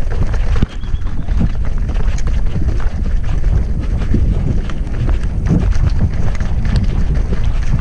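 Wind buffeting an action camera's microphone, with a hardtail mountain bike rattling and knocking over stone paving in many short, irregular clatters.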